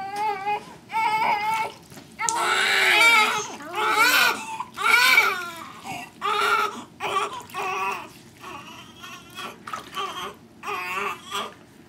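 Newborn baby crying while being washed: repeated wailing cries, loudest from about two to five and a half seconds in, then shorter, weaker cries.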